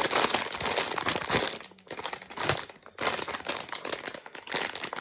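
Blind-box packaging being crinkled and handled as it is opened, in three bouts of rustling with short pauses between them.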